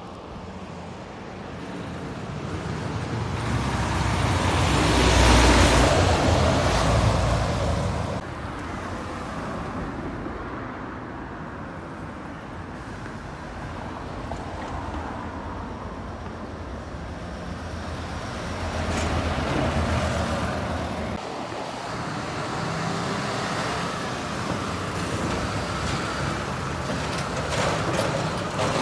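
Road traffic with heavy lorries driving past close by. The loudest pass swells and fades about five seconds in, with smaller passes later on.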